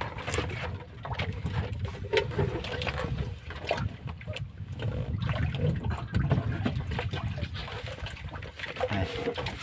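Water slapping and splashing against the hull of a small wooden outrigger boat, with scattered knocks and clatter of fishing line and gear being handled in the boat.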